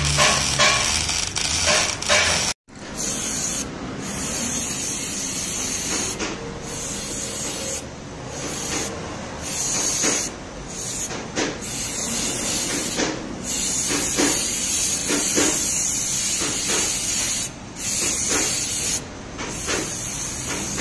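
MIG welder crackling and buzzing for about two and a half seconds, then cut off suddenly. Then an aerosol spray can hisses in long bursts with short pauses as the welded frame rail is sprayed with paint.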